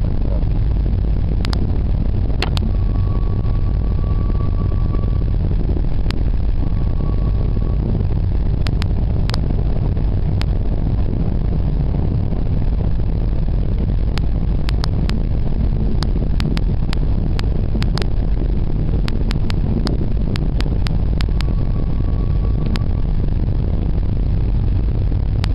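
Moving vehicle's engine and road noise as heard on board: a steady low rumble, with scattered sharp ticks and rattles throughout.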